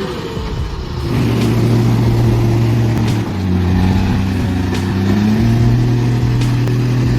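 Heavy truck engine running hard under load. Its pitch drops about a third of the way through and rises again a little past the middle.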